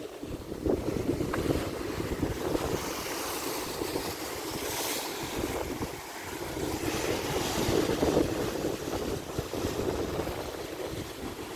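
Ocean waves surging and breaking against a rocky shoreline just below, the wash swelling and easing several times, with wind buffeting the microphone.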